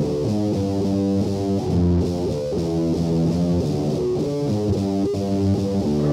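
Electric guitar and bass guitar playing a melodic riff of quick, changing notes.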